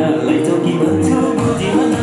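Recorded Nepali song playing: a melody of held notes over a steady beat with light shaker-like percussion.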